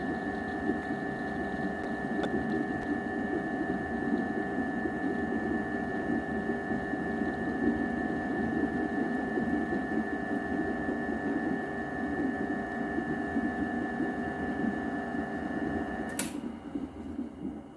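A small electric machine running with a steady hum and a constant high whine, switched off with a sharp click near the end, after which it goes quiet.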